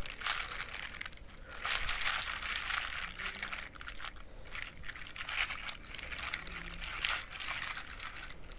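Clear plastic bag crinkling in a series of irregular rustles as hands squeeze and turn it.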